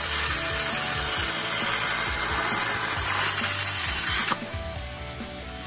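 Everlast 82i plasma cutter on a CNC table cutting steel plate, a loud, steady hiss of the arc and air jet. About four seconds in the arc cuts off suddenly, leaving a quieter hiss. The cut is running well on fresh torch consumables.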